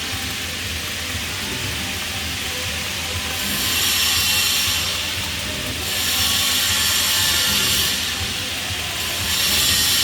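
Flux-cored arc welding on pipe: a continuous hissing arc over a low hum, growing louder in three stretches, about four seconds in, again from about six to eight seconds, and near the end.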